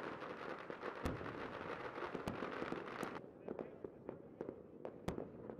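Fireworks going off: a dense crackle of many small explosions punctuated by sharp bangs. The crackle cuts off suddenly about three seconds in, leaving scattered pops and bangs.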